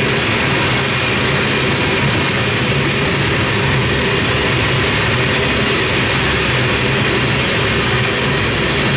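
Covered hopper cars of a freight train rolling by, a steady, loud noise of steel wheels running on the rails.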